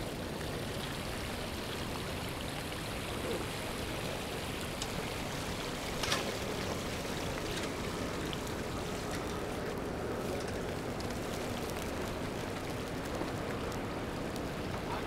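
Steady rushing noise of a city street in falling snow, with one sharp click about six seconds in.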